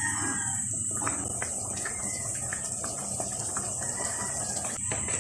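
Beef caldereta stew simmering in a wide pan, bubbling with scattered small pops, under a steady high-pitched chirring.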